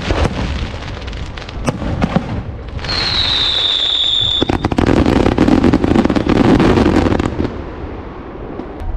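Aerial fireworks display: a few sharp bangs of shells bursting, then a whistling shell whose whistle falls slightly in pitch about three seconds in. A dense run of rapid crackling pops follows for about three seconds and is the loudest part.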